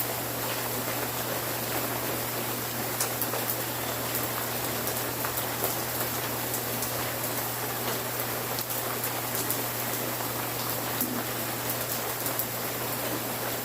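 Steady rain, with many individual drops ticking sharply on a hard surface over an even rushing hiss, and a faint steady low hum underneath.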